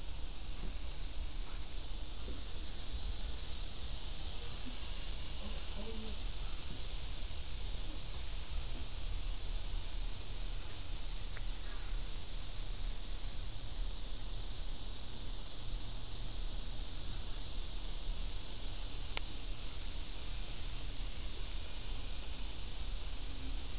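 Steady high-pitched chorus of night insects, an even shrill drone, over a low rumble.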